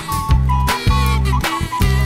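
Background music: an upbeat track with a steady beat, a bass line and short melodic notes.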